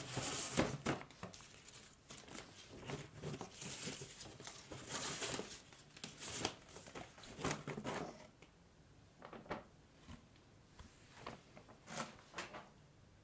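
Ribbon rustling and swishing as it is pulled and untied from a cardboard cake box, in a run of dense bursts for about eight seconds. Then a few sharper, separate scrapes and crinkles of cardboard as the box is opened.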